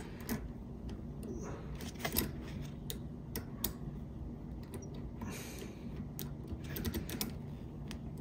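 Small hand ratchet clicking in irregular runs of sharp ticks as it is worked back and forth, loosening a tight mounting-plate screw on a bicycle disc-brake caliper.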